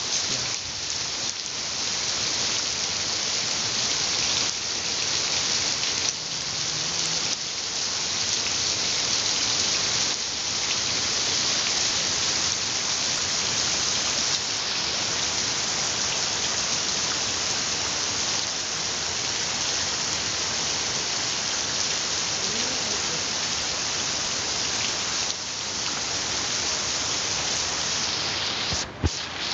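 Heavy rain pouring onto a flooded concrete path, a steady dense hiss of drops hitting water and pavement. A brief knock near the end.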